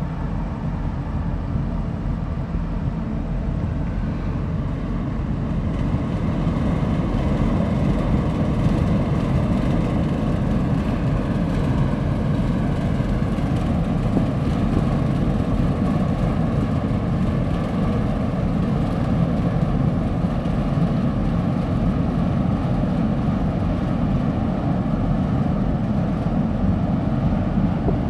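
Low, steady rumble of a large container ship under way passing close by, growing a little louder about six seconds in.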